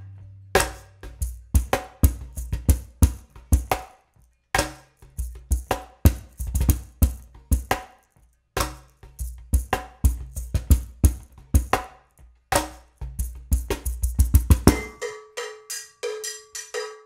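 Yambu Peruano cajón played by hand: a groove of deep bass strokes and sharp slaps, with a few brief pauses. About fifteen seconds in, the cajón stops and a cowbell struck with a stick takes over in a steady rhythm.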